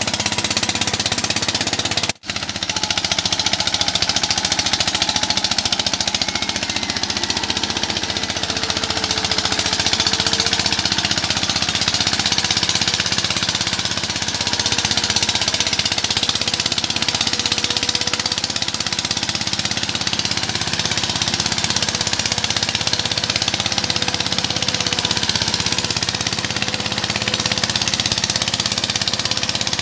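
Mahindra Yuvraj NXT mini tractor's single-cylinder diesel engine running steadily under load while it pulls a rotavator through the soil. The sound drops out for a moment about two seconds in.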